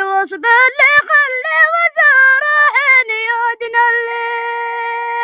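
A boy singing a Razihi mawwal, a Yemeni unaccompanied vocal improvisation, in a high voice with quick ornamented turns of pitch. He ends on a long held note of about two seconds that stops abruptly.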